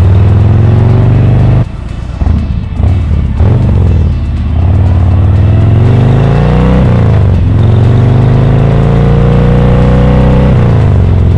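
Harley-Davidson Sportster V-twin accelerating on the road, its pitch climbing through the gears. The throttle closes briefly about two seconds in, and the pitch drops at gear changes about seven seconds in and near the end.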